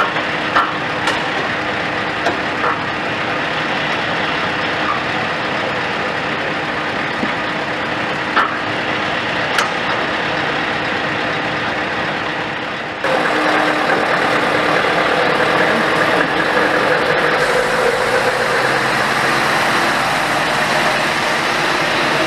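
Heavy diesel truck engine idling steadily, the Scania S 730's V8, with a few sharp clicks in the first half. About halfway through the sound changes abruptly and becomes a little louder.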